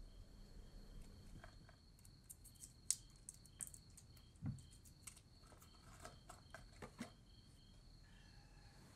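Faint night ambience of crickets chirring in a steady high tone, one of them pulsing. Scattered soft clicks and rustles, with a dull low thump about four and a half seconds in.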